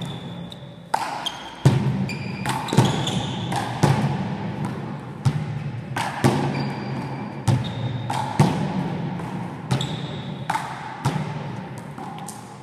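Handball rally: a rubber ball slapped by gloved hands and smacking off the wall and floor about a dozen times, each hit echoing in the hall. Short high squeaks of sneakers on the gym floor come between the hits.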